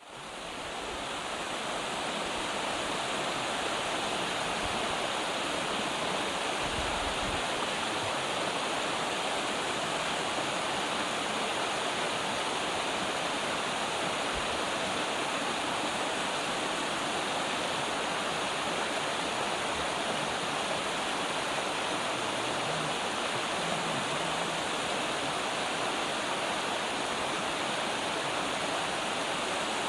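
Mountain valley stream: water rushing steadily over rocks, an even unbroken rush that fades in over the first two seconds.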